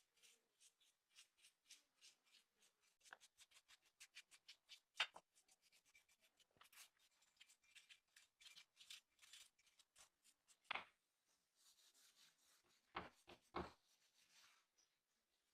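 Faint, quick scraping strokes of hand work, several a second, with a few sharper knocks near the end.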